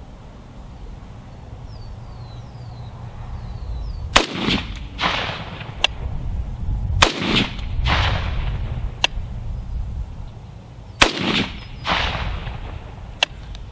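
Three shots from a Beretta ARX-100 semi-automatic 5.56 mm rifle, a few seconds apart, each a sharp crack followed a moment later by an echo.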